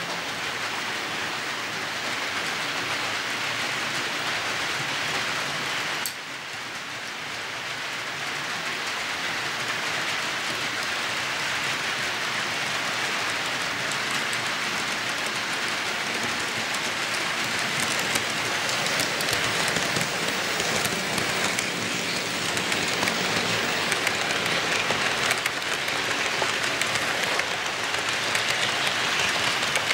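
HO-scale model freight train running on the layout track: a steady hiss of wheels and motors that grows louder as the cars pass close by, with light clicks over the rail joints in the last ten seconds or so.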